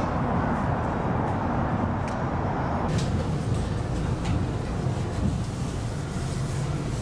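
Steady low rumble and hiss inside a Portland Aerial Tram cabin. The hiss drops about three seconds in, leaving the rumble and a few faint clicks.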